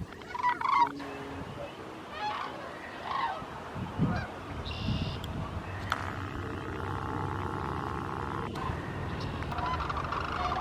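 Sandhill cranes calling, a scatter of short honking calls, loudest about half a second in. A steady droning tone sounds in the middle of the stretch and stops suddenly.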